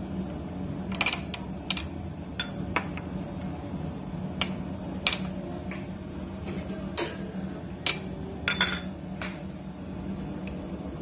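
White ceramic spoon clinking against ceramic bowls and a plate: a dozen or so sharp clinks at uneven intervals, some in quick pairs, over a steady low hum.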